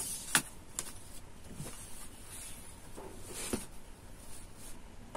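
Quiet rustling of cotton cloth being lifted and folded over on a cutting table, with a few short sharp rustles.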